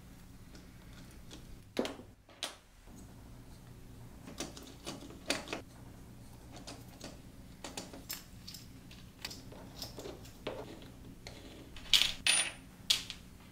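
Small clicks and clatters of hands assembling a 3D-printed plastic RC car chassis: a hex driver turning small screws and plastic parts being handled and set down on the cutting mat. The loudest few clicks come near the end.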